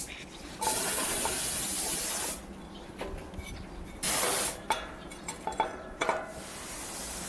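Three bursts of hissing spray, the first lasting well over a second, with a few light metallic clicks between them.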